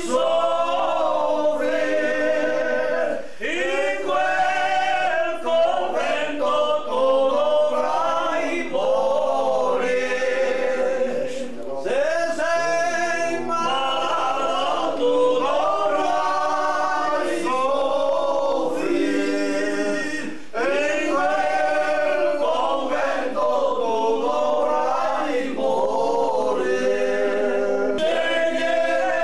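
A group of men singing an Italian tavern song (canto d'osteria) together, unaccompanied, with brief pauses between phrases.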